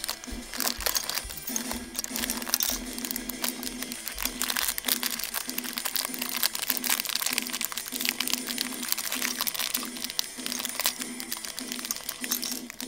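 Thin clear plastic bag crinkling and crackling continuously as fingers squeeze and turn it, with the small plastic containers inside clicking against each other. Soft background music plays underneath.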